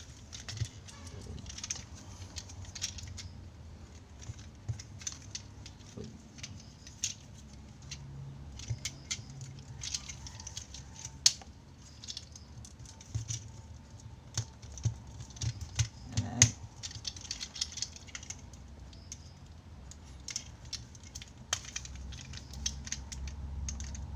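Small plastic transforming robot toy being handled and folded into its car mode: irregular clicks, taps and rattles of plastic parts snapping and sliding into place, with a few sharper clicks partway through.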